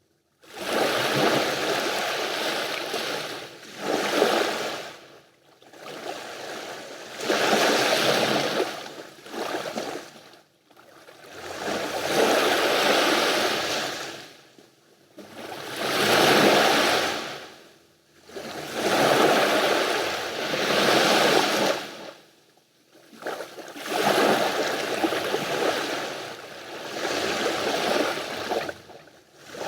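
Sea waves breaking and washing up the beach, each wash swelling and fading every two to four seconds with brief, almost silent lulls between.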